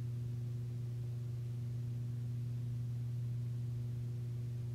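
A steady low hum with a couple of fainter higher tones above it, unchanging throughout, and no other sound.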